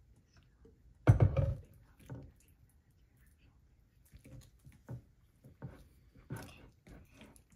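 A single loud thump about a second in, then irregular clicks and soft wet squelches as sticky slime is stirred with a plastic stick in a glass mixing bowl.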